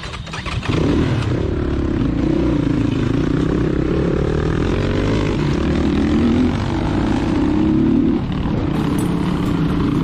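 Crossfire Cross X 250 SE dirt bike's engine revving up about a second in and then running under throttle over a rough gravel track, its pitch rising and falling with the throttle; the revs drop a little near the end.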